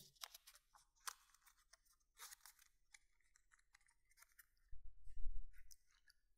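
Fine-grit sandpaper being handled and folded: a scatter of small crackles and rustles. About five seconds in, a low rumble of handling noise.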